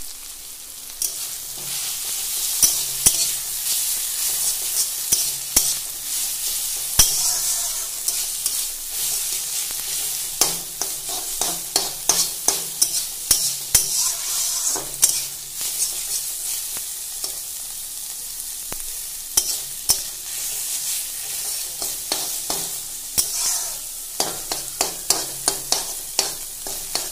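Leafy greens sizzling as they stir-fry in a stainless steel kadai, a steady hiss, while a metal spatula scrapes and clacks against the pan in quick runs of strokes.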